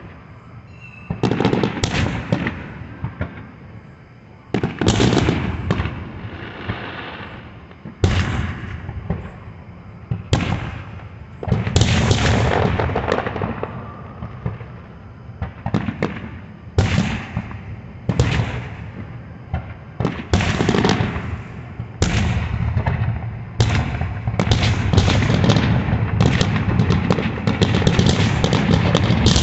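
Aerial fireworks bursting: loud bangs every one to three seconds, each trailing off in a rumbling echo. The bursts come faster and faster, and for the last few seconds they run together into a near-continuous barrage.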